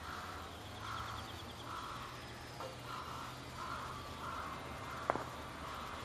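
A bird's harsh call repeated evenly, about once every three-quarters of a second, over a steady low background rumble, with one sharp click about five seconds in.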